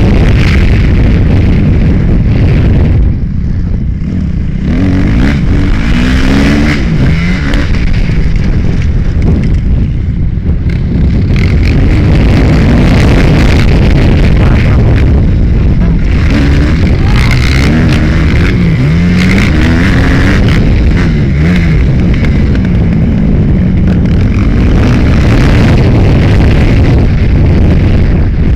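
Kawasaki KX250F four-stroke single-cylinder motocross engine revving up and down through the gears, heard very loud on board from a helmet camera. The engine pitch rises and falls over and over, and the throttle eases off briefly about three seconds in and again about ten seconds in.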